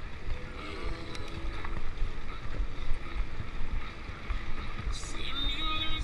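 Wind rumbling and buffeting on the microphone, with brief snatches of a voice about a second in and again near the end.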